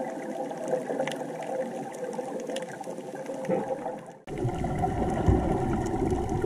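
Underwater sound of hookah diving: bubbling from the divers' breathing over a steady engine hum carried through the water, with faint scattered clicks. About four seconds in it breaks off and gives way to a louder, lower rumble.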